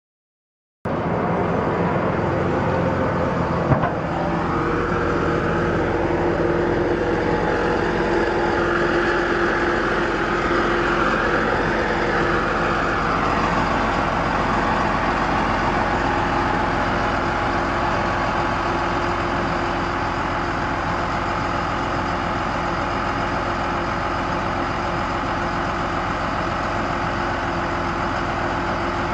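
Cummins 5.9L inline-six diesel of a Sterling L7500 truck idling steadily, starting about a second in, with a single click about 4 s in and a higher whine that comes and goes over the first half.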